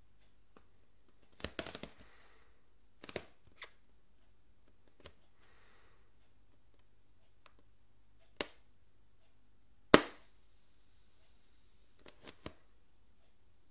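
A needle being worked through sticky tape on an inflated latex balloon without popping it: scattered small clicks and taps of fingers, tape and stretched rubber, with one sharp snap about ten seconds in followed by a faint high hiss lasting about two seconds.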